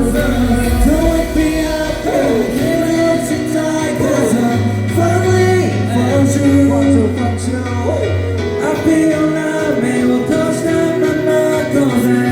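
Pop song performed live: singing over backing music with a steady bass line.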